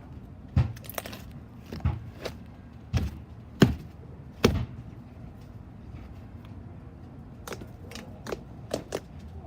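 Slime being squeezed and poked by hand, its trapped air bubbles popping. About seven sharp pops and clicks come in the first few seconds, then a quiet stretch, then a few softer clicks near the end.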